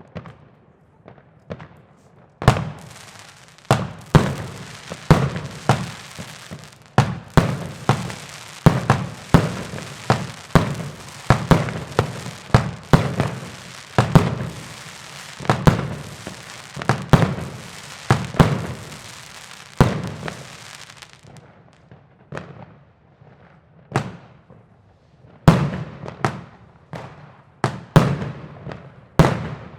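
New Year's Eve fireworks going off: a rapid string of loud bangs over a steady hiss and crackle, starting about two seconds in. After about two-thirds of the way through the crackle stops, leaving scattered single bangs.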